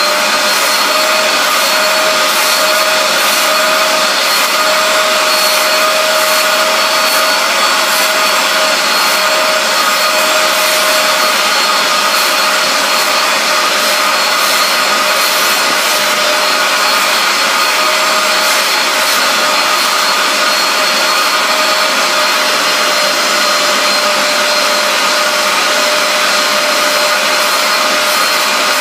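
Bissell SpotClean Pro portable carpet cleaner running steadily, its suction motor giving a loud, even whine over a rush of air.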